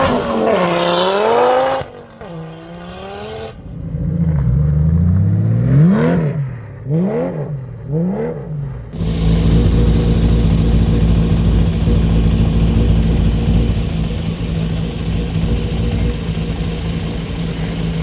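Rally car engine revving hard, its pitch climbing and falling through gear changes, with several quick rev rises in a row. About halfway through it gives way abruptly to a steady engine drone that holds one even pitch.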